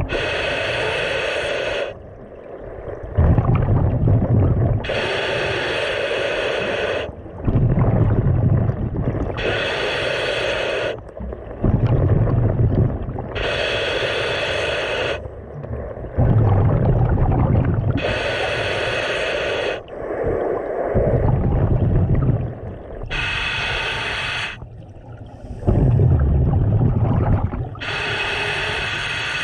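Scuba diver breathing through a regulator underwater: a loud burble of exhaled bubbles about every four to five seconds, with a quieter hiss of the inhale between them.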